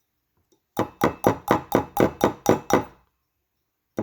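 Nylon hammer tapping a rose gold wire ring down a metal ring mandrel: a run of about nine quick taps, roughly four a second, each one ringing briefly, starting about a second in, with another run beginning near the end.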